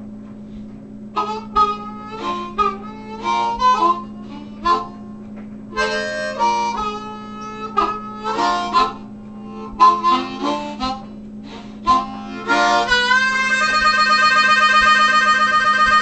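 Blues harp (diatonic harmonica) played solo, cupped in the hands: short runs of notes in phrases broken by brief pauses, then, from about three-quarters of the way in, a long held chord that wavers.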